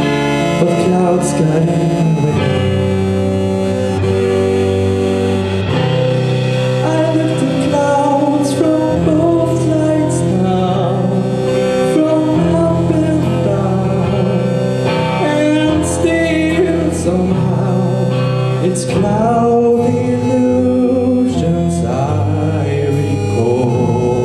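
A rock band playing a song live on stage: electric guitars, bass, keyboard and a drum kit with cymbal hits.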